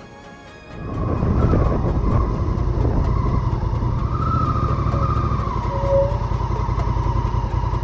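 Adventure motorcycle engine running steadily, cutting in suddenly and loudly about a second in.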